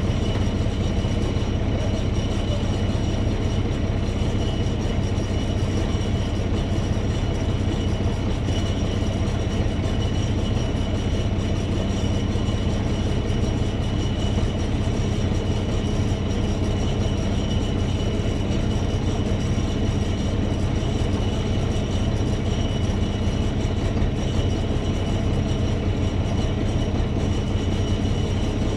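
A heavy vehicle engine running steadily at constant speed, with a low hum and a constant high-pitched whine over it.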